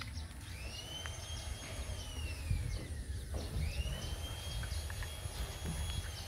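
Puppy whining: two long, high-pitched whines, each rising and then slowly falling, while it play-fights with an older dog. A steady low rumble lies underneath.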